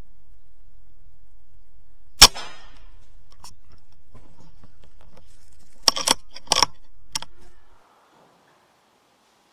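Air rifle fired once about two seconds in: a single sharp crack with a short ringing tail. A few seconds later come several quick, sharp clicks.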